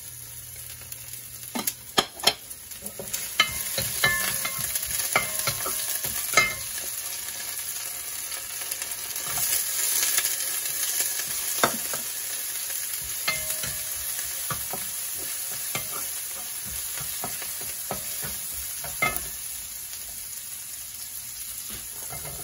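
Oil sizzling in a wok as garlic, green onion and soaked dried shrimp stir-fry, the sizzle getting louder about three seconds in. A wooden spatula stirs the food and clacks sharply against the pan now and then.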